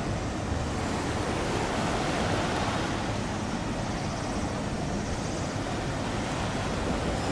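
Steady wash of wind and sea water, with a low, uneven wind rumble on the microphone.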